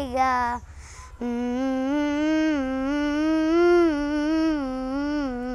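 A young girl singing a Malayalam song unaccompanied: a sung phrase ends just after the start, and after a short breath she hums one long line with her lips closed, the pitch rising and falling.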